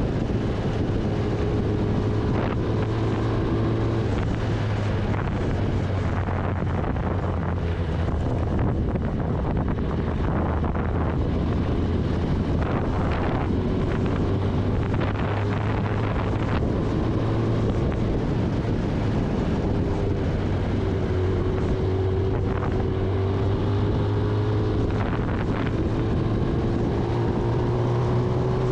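Kawasaki Ninja ZX-10R inline-four engine running at a steady cruise while riding, with wind rushing over the microphone. The engine note climbs slightly near the end as the bike picks up speed.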